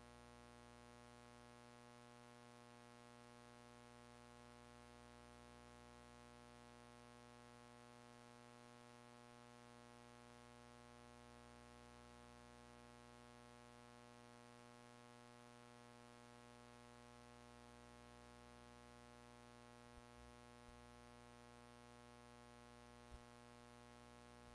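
Near silence with a faint, steady electrical hum. A few faint clicks come near the end.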